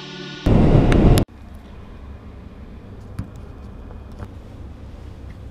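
A brief loud blast of wind buffeting the microphone, cut off abruptly after under a second. Then a steady low vehicle rumble follows, with a couple of faint clicks.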